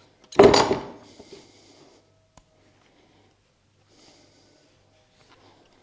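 Handling noise from a rifle stock being turned in the hands while its sling stud is unscrewed: a brief loud rub about half a second in that fades over a second, then a single click and faint light taps.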